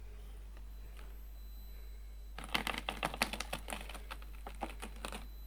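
Redcat Ascent18 1/18-scale micro crawler climbing a steep rocky slope, its tyres and drivetrain giving a rapid, irregular clatter of small clicks. It starts about two and a half seconds in and stops just before the end.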